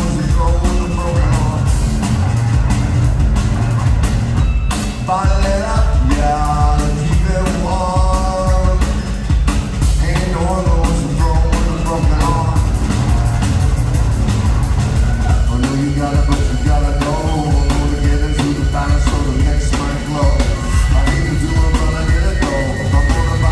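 Rock band playing live: drum kit and heavy bass under a vocalist singing in phrases, with short gaps between the sung lines.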